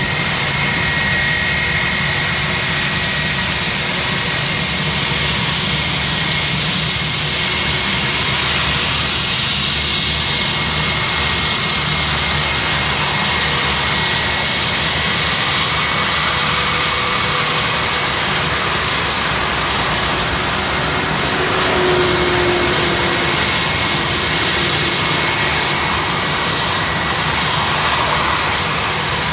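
Turbofan engines of an Airbus A320-family airliner running at low power as it taxis slowly past, a loud, steady jet hiss and rumble with a thin whine.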